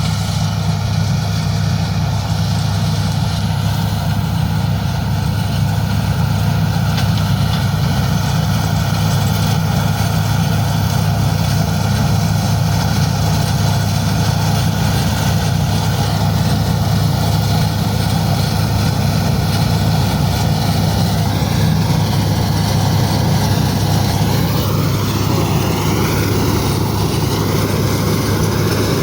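Mahindra Arjun Novo 605 tractor's diesel engine running steadily at constant speed, working in the wheat harvest.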